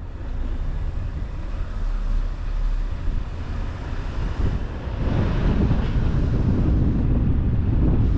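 Wind buffeting the microphone in a low, steady rumble that grows heavier about five seconds in.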